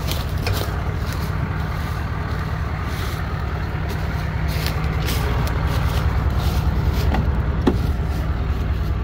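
1993 GMC 2500's 6.5-litre turbo diesel V8 idling steadily while the truck creeps along in four-low, with a few scattered crackles of footsteps on the leaf-covered ground.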